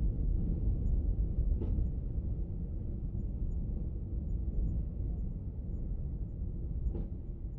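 Steady low outdoor rumble, with a faint click about two seconds in and another near the end.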